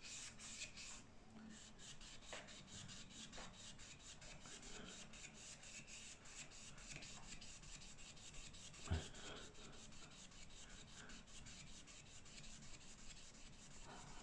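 Faint rubbing of a solvent-dampened tissue, wrapped over a flat plate, scrubbed back and forth along model railway track in quick even strokes, about four a second, with a single tap about nine seconds in.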